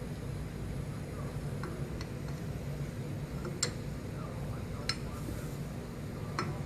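A few sharp metallic clinks, spaced a second or more apart, from hand tools working on a lathe's three-jaw chuck as it is reseated and tightened after being found loose and wobbling. A steady low hum runs underneath.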